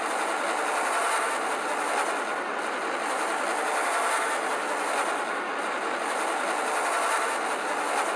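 Loud, dense wall of harsh distorted noise from layered, pitch-shifted copies of a cartoon's soundtrack, steady with slight swells about once a second.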